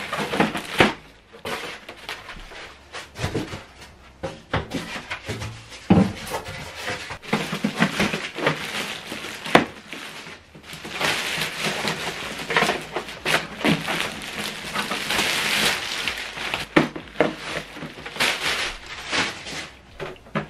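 A clear plastic bag crinkling and rustling as it is handled and pulled off a new printer, with a long spell of crackling in the middle. Polystyrene packing end caps scrape, and knocks and clunks come from the printer being set down on a table.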